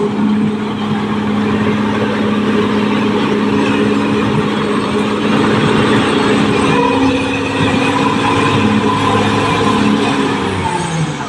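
Caterpillar D6R XL bulldozer's diesel engine running steadily over a dense wash of mechanical noise, its note sagging slightly near the end.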